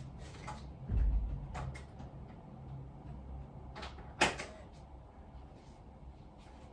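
Small handling knocks: a low thump about a second in, a few light clicks, and a sharp click a little after four seconds.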